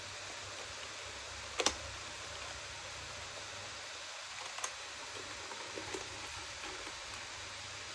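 A few sparse, sharp clicks over a steady hiss: a quick double click, then single clicks a few seconds later.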